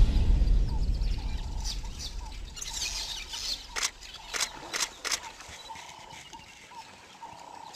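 Birds calling in short repeated notes, with a few sharp clicks between about one and a half and five seconds in. Background music fades out over the first few seconds.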